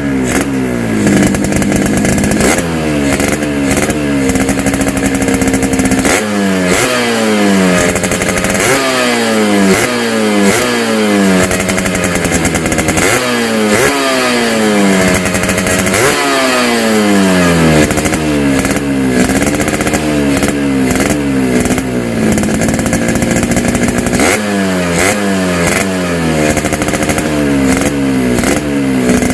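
Yamaha RX-King two-stroke single-cylinder engine revved in repeated short throttle blips through its gutted ('bobok') exhaust, the pitch jumping up and sliding back down each time, with a few seconds of steadier running between bursts. The hollowed-out muffler gives it the crisp, rattly 'garing ngorok' tone it was modified for.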